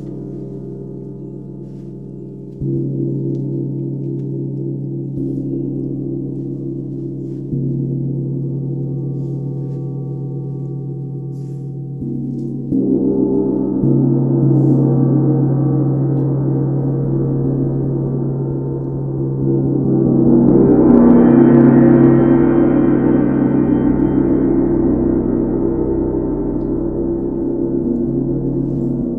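A 32-inch UFIP brass symphonic tam-tam struck several times, each stroke adding to a low, layered ringing hum. About twenty seconds in the sound swells and brightens into a higher shimmer, then slowly dies back to the low hum.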